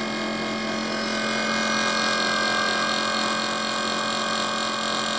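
Brushless outrunner motor running steadily, spinning two stacked magnet rotors inside a copper tubing coil through a universal joint: a steady whine made of several fixed tones. A higher tone grows stronger about a second in.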